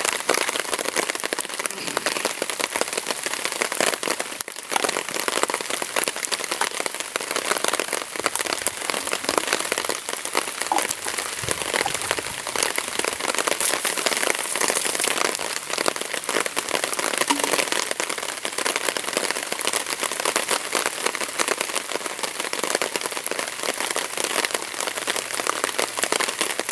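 Steady, dense crackling patter of many fine ticks, like rain on leaves. No chainsaw engine is running.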